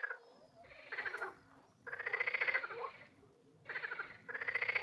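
Frogs croaking: four rapid, rattling calls in a row, each under a second long, with short gaps between them.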